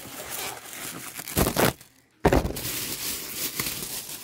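Rustling and crinkling of takeout food packaging as containers are unwrapped and opened, with a few sharper louder handling noises around the middle and a brief break about halfway.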